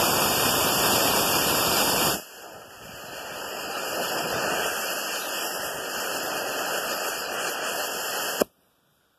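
Estes E12-6 black-powder model rocket motor firing on a static test. A loud rushing hiss of the thrust burn cuts down about two seconds in to a quieter hiss of the delay charge burning, which lasts about six seconds. A sharp pop near the end, which is the ejection charge, ends the sound abruptly.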